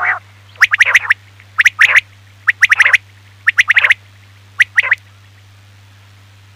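Quail calling: a harsh call tails off at the start, then five quick bursts of rapid notes come about a second apart and stop about five seconds in. A steady low hum runs underneath.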